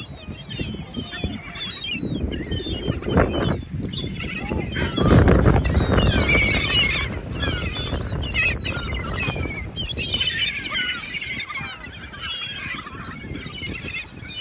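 A flock of geese, ducks and other birds calling and chirping over one another while being fed. About five seconds in there is a loud, low rush.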